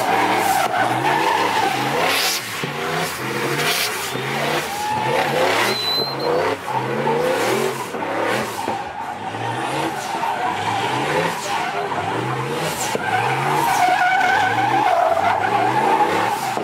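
Fox-body Ford Mustang doing donuts: its engine revs rise and fall over and over, about once a second, while the rear tyres squeal and skid.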